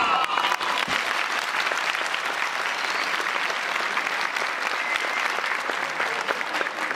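Audience applauding with dense, steady clapping, just as the music's last note dies away at the very start.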